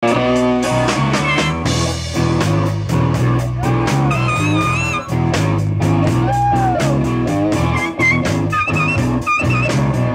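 Live band playing: electric guitars over a drum kit keeping a steady beat.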